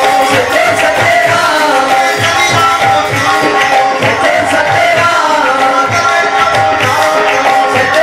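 Men singing a devotional dhuni chant through microphones, over a steady tabla beat of about two strokes a second.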